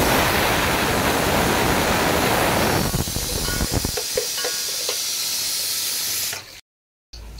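Sliced onions sizzling loudly in hot oil in an aluminium pot, just added for frying and stirred with a spoon. The sizzle is strongest at first and eases off about halfway through, with a few light clicks of the spoon.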